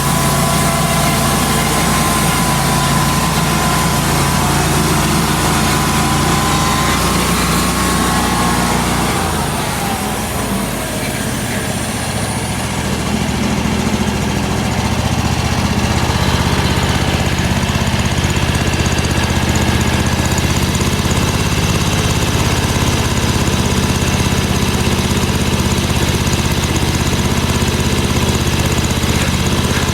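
Homemade sawmill running steadily as its engine drives the blade slowly through a small log. The engine's pitch drops slightly about ten seconds in and then holds steady.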